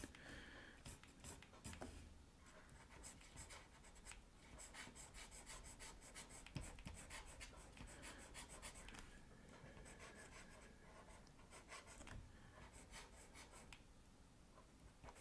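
Faint scratching of a pen stylus on a graphics tablet, drawing many short, quick strokes.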